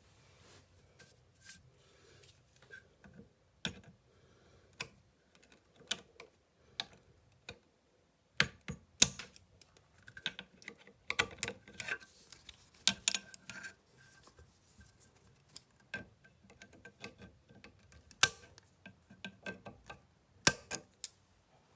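Irregular clicks and taps of hand tools and parts being handled while working on a stuck scope-base screw on a shotgun receiver, with a few sharper knocks around the middle and near the end.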